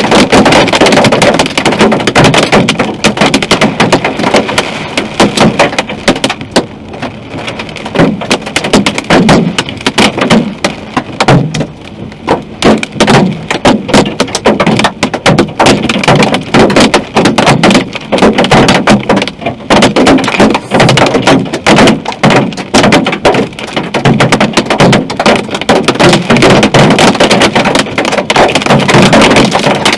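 Hail drumming on a car, a dense, irregular rattle of countless hard impacts that eases a little around a quarter and again about two fifths of the way through, then comes back as hard as before.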